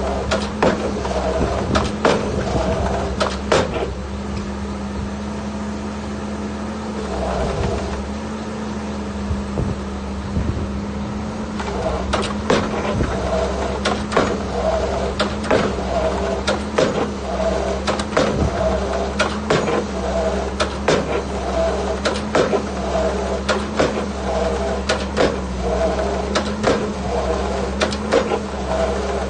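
Excavator engine running steadily under repeated metallic knocks and clanks as it works piles. The knocks thin out about four seconds in, then return about twelve seconds in as a regular, squeaky beat.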